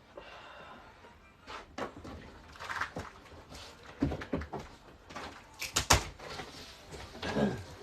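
Handling noises from putting together a toy: a series of irregular knocks, clicks and rustles, with one sharp click about six seconds in.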